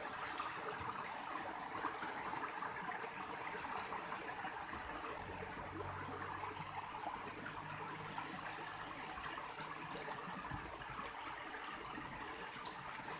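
Water flowing steadily in a rice-field irrigation channel. A low steady hum joins for several seconds in the middle.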